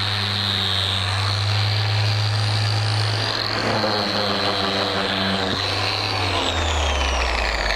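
Electric random orbital sander running with a steady high whine, sanding cured Bondo body filler smooth on a wooden fascia corner. About six seconds in it is switched off, and the whine falls in pitch as the pad spins down.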